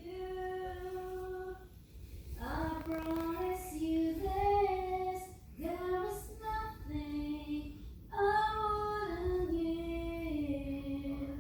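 A high voice singing a slow tune in long, held notes, in four phrases broken by short pauses.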